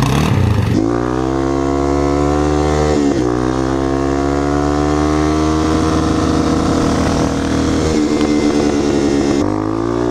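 Yamaha TT-R230 dirt bike's single-cylinder four-stroke engine pulling under load, its pitch climbing, dropping at a gear change about three seconds in and climbing again, with another shift near the end.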